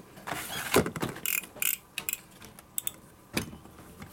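Clicks and rattles of 25 mm snap-off cutter knives being handled, their plastic and metal parts clicking and knocking on the counter. There is a quick run of clicks in the first two seconds, the sharpest about a second in, then a few single clicks.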